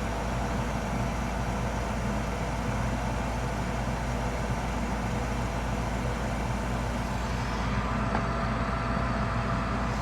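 Old gas furnace running with its burners lit: a steady mechanical hum. A faint whine joins near the end.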